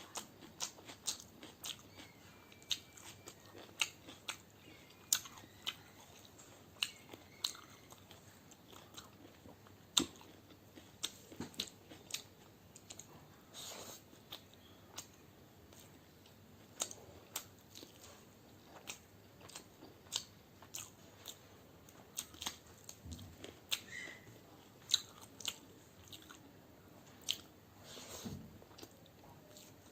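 Close-miked eating of egg biryani: chewing and crunching, with many irregular sharp clicks and mouth smacks.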